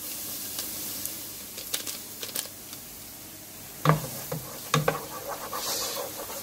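Curry powder sizzling in hot oil in a steel pot with a steady hiss, as it is 'burned' (toasted) before the meat goes in. A wooden spoon stirs and scrapes it, with a few clicks and two sharper knocks on the pot about four and five seconds in.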